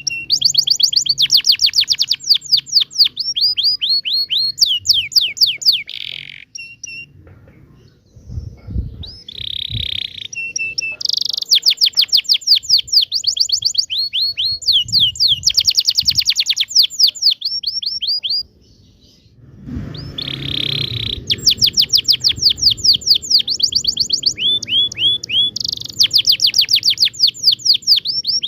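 Domestic canary singing a long song of fast rolling trills: rapid runs of repeated sweeping notes, broken by two short pauses.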